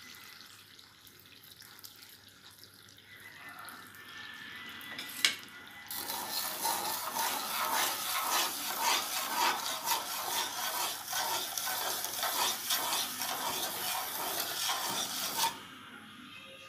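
Wooden spatula stirring undissolved granulated sugar and a little water in a non-stick kadai: a steady gritty scraping of sugar grains against the pan. It starts about six seconds in, after a single sharp tap, and stops abruptly near the end.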